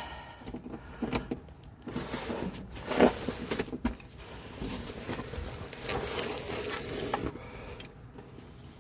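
Tools working on a car's rear shock absorber mounting bolts: irregular metal clicks and clanks, with a steadier whirring stretch about midway.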